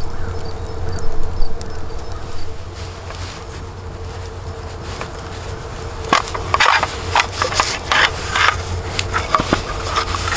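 A cloth bag rustling as a carbon-steel skillet is pulled out of it, with a quick run of sharp clicks and scrapes in the second half, over a steady low rumble.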